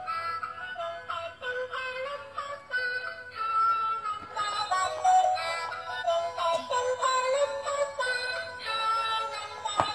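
Battery-operated toy fishing game playing its tinny electronic song with a synthesized singing voice through its small built-in speaker, the melody running on with no break. A single sharp knock comes near the end.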